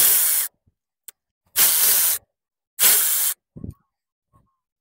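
Ratchet wrench with a socket on an extension spinning the nuts off the oil strainer cover plate studs of an air-cooled VW engine: three short bursts of fast ratcheting, about half a second each.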